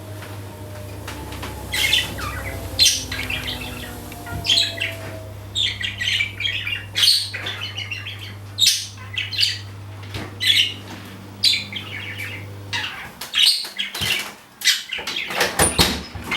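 Budgerigar chirping in short, repeated high bursts over a low steady hum; the hum stops about 13 seconds in.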